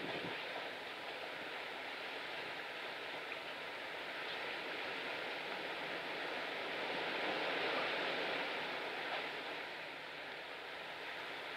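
Steady rushing noise of choppy sea water, swelling a little about seven seconds in.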